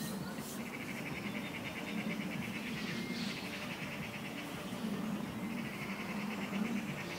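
An animal's rapid, buzzy trill, repeating in runs of a second or two, over a steady low background hum.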